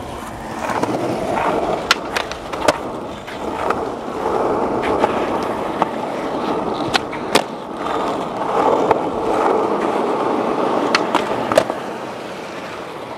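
Skateboard wheels rolling over rough asphalt: a steady gritty rumble that swells and eases, with several sharp clicks scattered through it.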